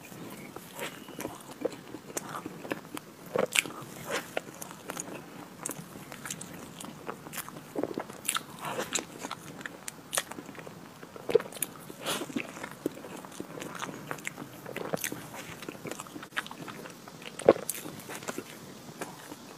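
Chewing and biting of chocolate ice cream cake: irregular wet mouth sounds and soft clicks, with a few louder bites, the loudest near the end.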